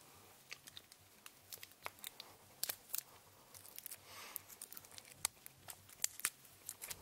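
Cellophane shrink-wrap on a new deck of playing cards crinkling in irregular sharp crackles as fingers pick and tear at it, the plastic proving hard to get off.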